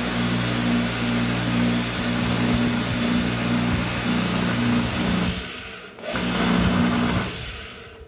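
Electric pressure washer's capacitor motor and pump running, starting and spinning normally on a newly replaced capacitor, with a steady hum. It winds down about five seconds in, runs again briefly and winds down near the end.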